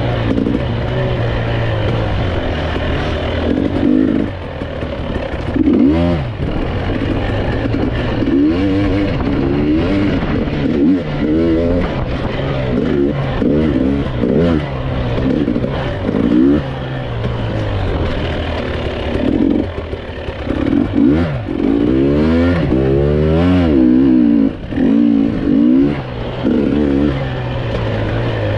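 GasGas EC 300 TPI two-stroke enduro motorcycle engine being ridden on the throttle, revving up and down over and over as the rider shifts and blips through the terrain, with a quick run of rising revs about three-quarters of the way through.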